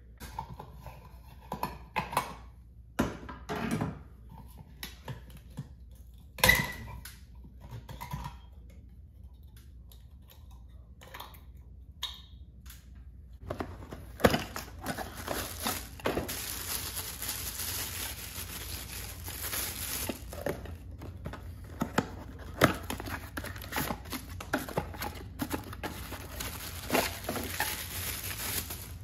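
A few scattered knocks and clicks, the loudest about six and a half seconds in. From about halfway there is continuous rustling and crinkling of cardboard boxes and a plastic bag as an LED retrofit downlight is unpacked, with small clicks of its plastic and metal parts.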